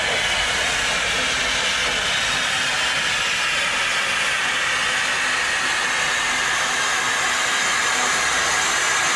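Steam locomotive No. 5810 venting steam in a steady hiss.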